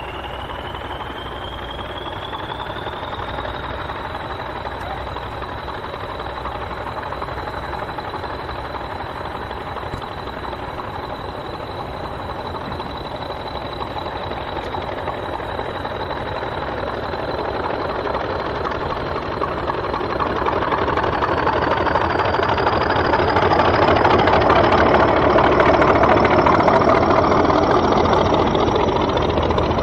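English Electric Class 40 diesel locomotive working under power, its 16-cylinder engine running with the high turbocharger whistle the class is known for. The whistle climbs in pitch over the first few seconds and holds steady. It climbs again from just before halfway, as the engine grows louder.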